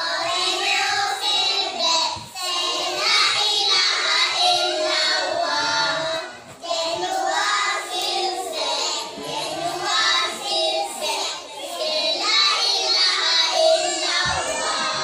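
A group of young children singing together in Malay, a song about ablution (wudhuk), phrase after phrase with short breaks between lines.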